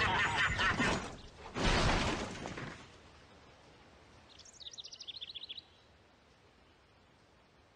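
A car pulling away over a dusty gravel road: a loud rush of noise in two surges that fades out by about three seconds in. Then a bird chirps in a quick series of high notes about halfway through.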